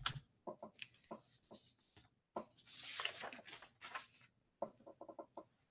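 Faint scattered clicks and taps from a computer mouse and light handling at a desk while the slides are advanced, with a short soft hiss like a breath or rustle about three seconds in.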